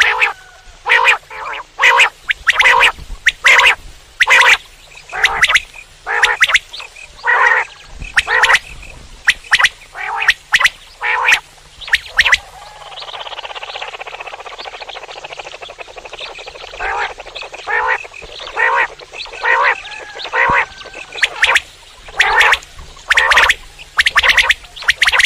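Common quail calling: short, sharp calls repeated about twice a second. About halfway through, the calls give way for a few seconds to a steadier, softer noisy sound, and then they start again.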